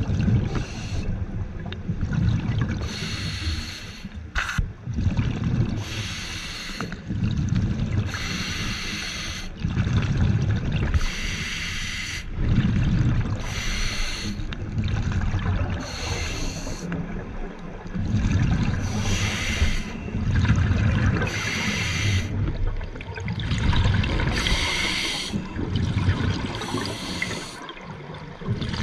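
Scuba diver breathing through a regulator underwater: a hiss on each inhalation alternating with the low rumble of exhaled bubbles, repeating roughly every two to three seconds.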